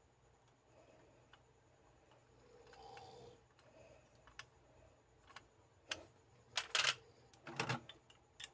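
Small plastic clicks and knocks from a Super Sentai Kyuranger Kyutama toy capsule being turned and handled, with a few louder plastic clacks about two thirds of the way through as it is moved and set down.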